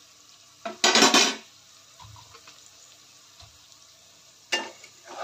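A steel pan lid is set down with a short metal clatter and scrape about a second in. Near the end a spatula scrapes in the kadai as stirring begins.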